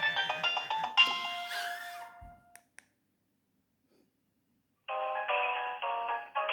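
Nokia 2610 mobile phone playing polyphonic ringtones through its small loudspeaker. One tune ends on a fading note and is followed by a soft thump. After about two seconds of silence, the next ringtone starts with short, stepped notes.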